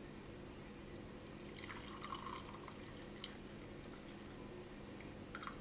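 Herbal drink being poured into a glass, a faint trickle, followed by a couple of small clicks near the end.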